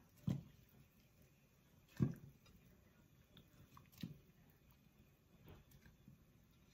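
Pieces of corn on the cob being dropped one at a time into a pot of water: four short, soft splashes about every one and a half to two seconds, with quiet between.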